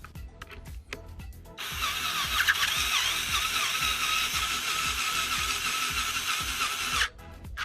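Cordless power drill-driver running for about five seconds with a steady whine, driving a kit mounting bolt home; it starts and stops abruptly.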